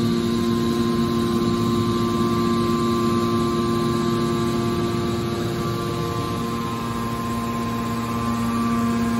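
Hydraulic pump unit of a scrap-metal baler running: a steady electric-motor-and-pump hum with a few fixed tones, easing slightly about six seconds in and picking up again near the end.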